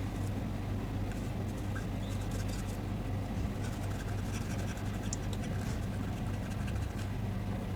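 Faint scratching and light scattered ticks of a circuit board being cleaned of flux and capacitor residue by hand, over a steady low hum.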